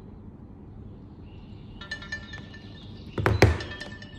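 A phone's timer or alarm tone chimes faintly in the background. About three seconds in come two sharp knocks as a smartphone in a case is laid face-down on the wooden table.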